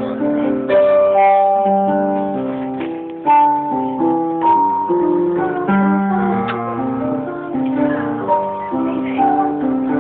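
Live piano music: slow chords with held melody notes, recorded on a phone with a dull sound that cuts off the highs.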